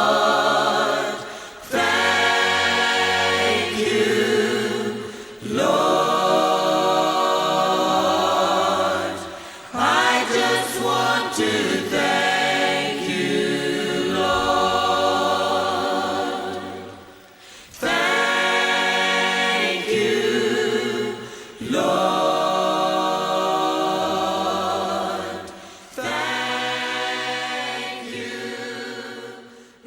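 Choir singing a slow worship song in phrases of a few seconds each, with short breaths between them.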